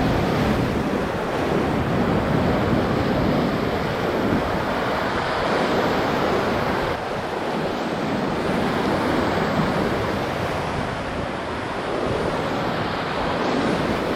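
Whitewater on the Ocoee River rushing around a raft: a steady churning of rapids, dipping slightly about halfway through, with some wind buffeting the microphone.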